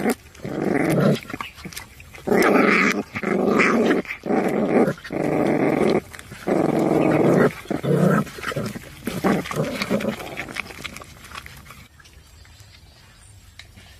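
Puppies crying: a run of about eight loud whining cries, each lasting up to a second, then shorter, fainter ones that die away about ten seconds in.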